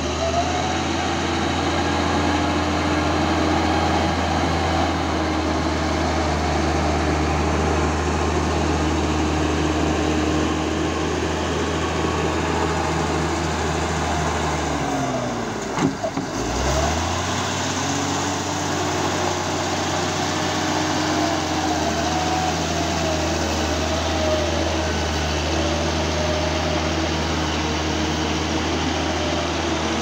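Caterpillar D6G crawler bulldozer's six-cylinder diesel running steadily under load as it pushes earth, with a high squeal that wavers in pitch. About halfway through, the engine note drops and then climbs back.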